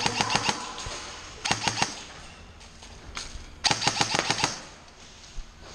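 Airsoft guns firing in rapid bursts of sharp clicks: one burst at the start, another about a second and a half in, and the longest near four seconds, with a few single shots between.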